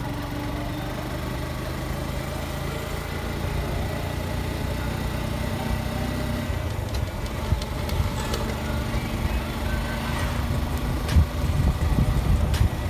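A motorcycle engine running at a steady idle amid road traffic, the sound growing busier and louder in the last few seconds with a few sharp clicks.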